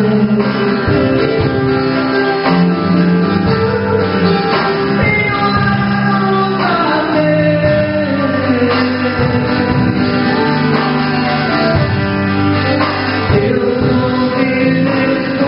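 Christian worship song: a voice singing over a band with guitar, with a long sliding sung note about halfway through.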